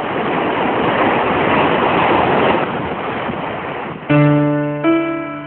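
Ocean surf rushing and washing, a steady swell of noise, then held keyboard chords come in about four seconds in, opening a song.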